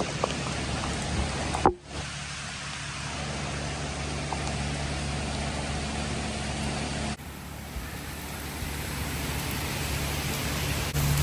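Steady rushing noise of heavy rain and wind from a hurricane, with a low hum underneath, breaking off abruptly about two seconds in and again about seven seconds in.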